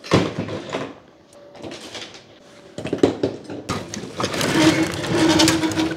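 Rustling and clattering of electrical fittings and a tangle of cables being handled and shifted on a table, loudest just after the start and again from about four seconds in, where a steady hum joins it.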